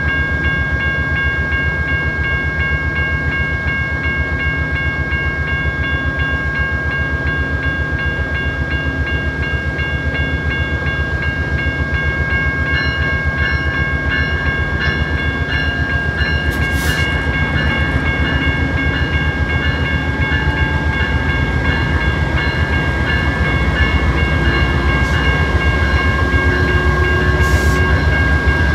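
Amtrak GE P42DC diesel locomotive running close by, a heavy low engine drone with a steady high whine over it. Two brief hisses come through in the second half, and the engine grows louder near the end as the train starts to move off.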